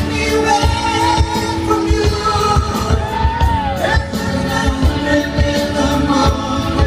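A live band playing a pop-rock song, with a lead singer's voice holding and gliding over a steady drum beat.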